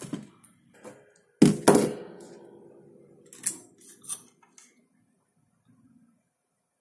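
Objects being set down on a workbench: two loud thunks about a second and a half in, with a short ringing tone fading after them, then a few lighter clicks and taps. A multimeter, its test probes and a spool of solder are what is being put down.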